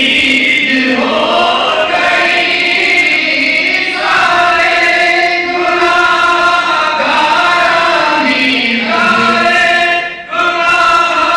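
A group of men chanting an Islamic devotional song in unison into microphones, with long held notes and a short break about ten seconds in.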